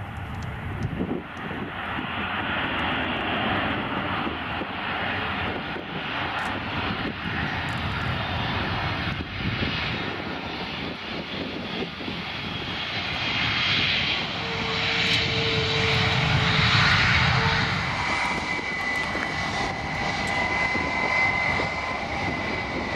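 Airbus A320 jet engines during its landing roll down the runway: a steady rush that grows louder as the airliner passes close by. A high, steady whine comes in over the last few seconds.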